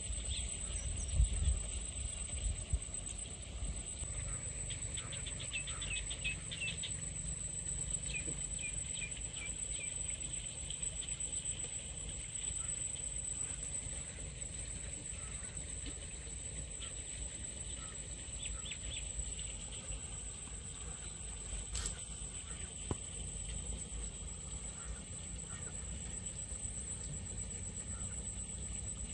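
Outdoor waterside ambience: a steady high-pitched insect drone, with a few quick series of bird chirps over a low rumble. A couple of knocks come about a second in.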